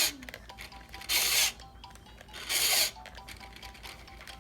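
Three short whirring bursts from the RC truck's steering motor and gears working the steering back and forth, each about half a second long and evenly spaced.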